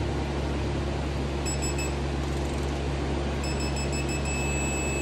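Digital torque-angle gauge on a wrench beeping in high-pitched electronic tones as a cylinder head bolt on a Kia 1.6 GDI engine is turned through a 90-degree pass. There are a few short beeps about a second and a half in, then quicker beeps that run into a steady tone near the end, signalling the 90-degree target angle. A steady fan hum runs underneath.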